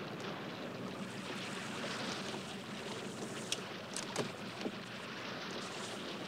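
Sea water washing against a moving wooden boat, with a steady low hum under it. A few short wooden knocks and creaks come in the middle as a man climbs down into a small rowing boat tied alongside.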